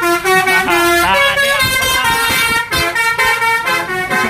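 Bus basuri 'telolet' horn, a multi-tone air horn, playing a tune: loud pitched notes that step from one to the next several times a second.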